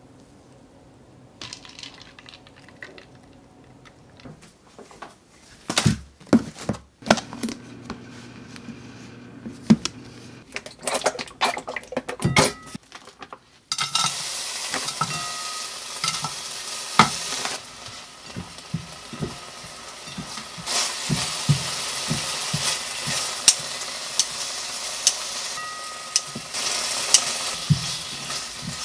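Scattered knocks and clatters of kitchenware, then from about halfway chopped green onion and ham sizzling steadily in oil in a frying pan, with a silicone spatula stirring and scraping against the pan.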